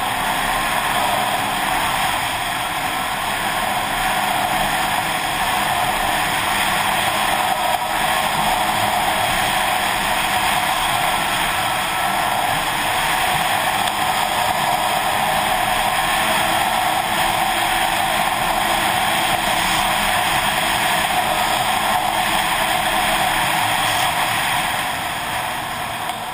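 Snowmobile running steadily at trail speed, engine and track noise mixed with wind rushing over the helmet-mounted microphone; the level eases off slightly near the end.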